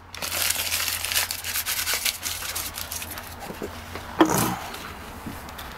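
Plastic candy bag crinkling and rustling as it is crumpled and torn by hand, busiest in the first couple of seconds and fainter after. A short louder sound stands out about four seconds in.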